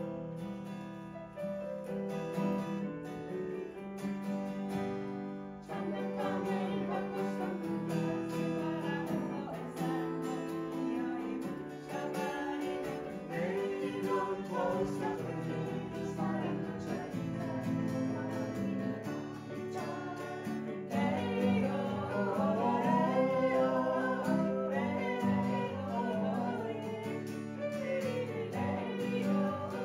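A small amateur group playing a song on an electronic keyboard and a strummed acoustic guitar, with voices singing. The instruments play alone at first, singing comes in about six seconds in, and it gets louder in the second half.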